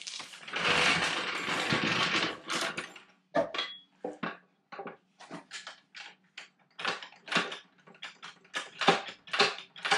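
Floor jack being set in place under a Jeep Wrangler TJ's fuel tank skid plate: a scraping rasp for about two seconds, then scattered metallic clicks and clunks.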